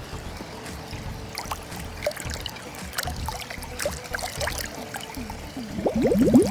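Water splashing and trickling as a suction-side pool cleaner's hose is fed into the pool to purge its air, with a louder burst of gurgling near the end.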